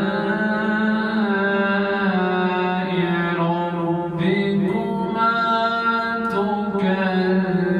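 A man reciting the Quran in the melodic, chanted tilawat style, holding long sustained notes. The melody moves to a new note about four seconds in and again near seven seconds.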